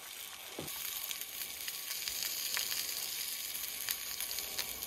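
Sausages frying in a skillet on a gas camp stove: a steady sizzle with scattered spitting pops, growing louder about half a second in.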